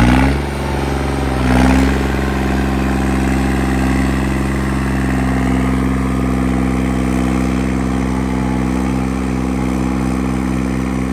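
A vehicle engine revving up sharply, a second rise about a second and a half in, then held at steady high revs, straining against a tow rope.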